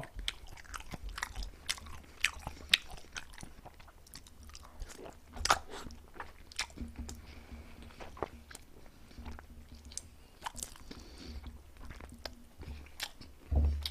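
A person chewing crispy chicken: irregular crisp crunches and clicks as each bite is chewed.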